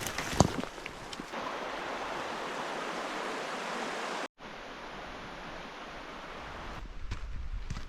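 Steady rush of flowing creek water, with a few sharp knocks in the first second. The sound drops out briefly about four seconds in and resumes.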